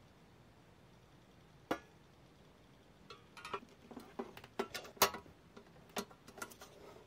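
A series of small, sharp clicks and taps of hard parts being handled: one tap about two seconds in, then a quick, irregular run of clicks, the loudest about five seconds in.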